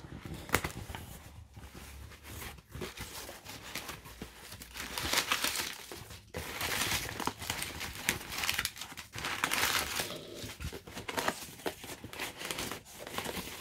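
Cardboard box being unpacked: packing tape torn open, then crumpled paper packing and corrugated cardboard crinkling and rustling in irregular bursts as they are pulled out, loudest about halfway through and again a few seconds later.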